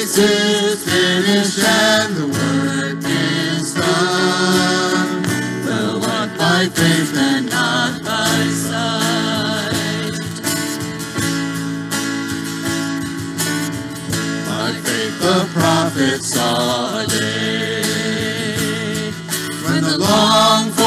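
Live worship band playing a song: strummed acoustic guitars, electric bass and keyboard under sung vocals.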